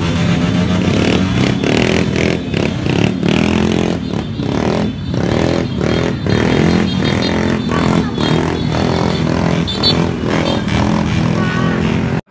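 Many motorcycle engines running and revving loudly at close range, with repeated surges of throttle. The sound cuts off suddenly at the end.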